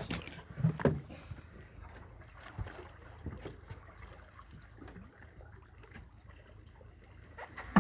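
Sharp knocks and bumps in a small fishing boat, a cluster about a second in and one short hard knock near the end, over a low steady rumble of wind and water.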